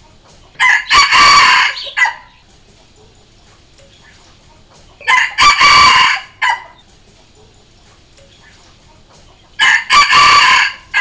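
Red junglefowl rooster crowing three times, about four and a half seconds apart. Each crow is short and broken, about a second and a half long.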